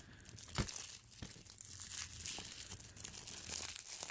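Plastic packaging being crinkled and torn off a movie disc case, a continuous crackle with a couple of sharp clicks in the first second or so.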